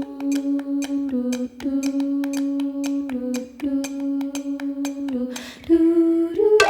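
Background song in a wordless stretch: a hummed melody of long held notes over a light, evenly ticking beat.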